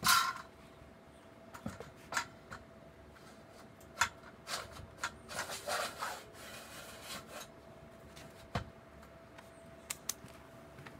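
A metal box rail slides down over metal conduit: a short, loud scrape of metal on metal right at the start, then scattered clicks and knocks and a stretch of rubbing and scraping in the middle as it is fitted at the bottom.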